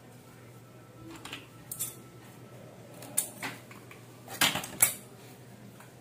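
A few short clicks and light clatters of small hard craft items being handled and set down on a table, with the loudest two knocks close together near the end.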